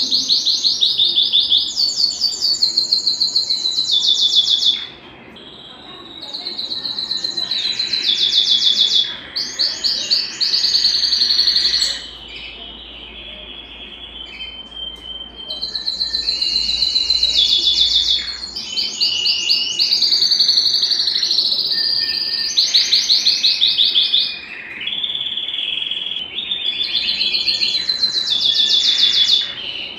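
Belgian canary singing: long runs of fast, high-pitched rolling trills, with a short break about five seconds in and a quieter stretch a little before halfway.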